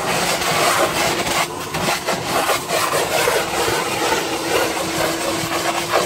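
Wet/dry shop vac sucking water out of a soaked car carpet, its motor humming steadily under a rough, uneven rush of air and water as the nozzle is dragged across the wet floor.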